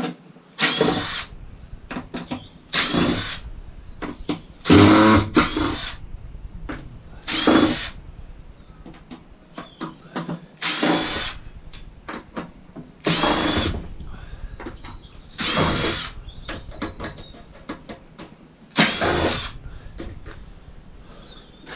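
Power drill-driver whirring in short bursts, about nine of them, backing screws out of a scrap cooker hob, with light clicks and knocks of metal parts between the bursts.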